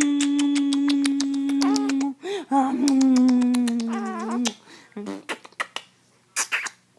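Two long drawn-out vocal sounds: the first held on one pitch for about two seconds, the second sliding slowly lower for about two seconds, followed by a couple of short sounds near the end.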